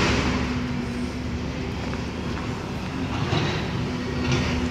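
Heavy construction machinery engine running steadily, a constant low rumble with a hum at a fixed pitch.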